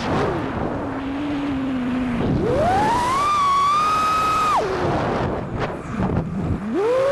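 Motors and propellers of a 5-inch FPV freestyle quadcopter whining with the throttle: XING 2307 2450kv brushless motors spinning Gemfan Sbang props. The pitch drops sharply at the start as the throttle is cut. About two seconds in it climbs and holds high, then falls away again with a few clicks. It rises once more near the end.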